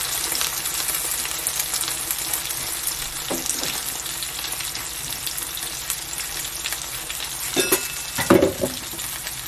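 Spicy gochujang-glazed enoki mushrooms sizzling and crackling steadily in a nonstick frying pan, the heat just turned off. A few brief knocks come through, the loudest near the end.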